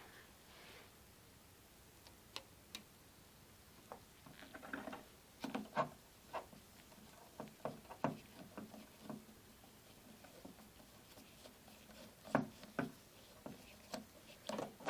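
Screwdriver backing out the long mounting screw of a wall light switch: irregular light clicks and short scrapes of the tool and screw against the switch's metal strap, in scattered clusters.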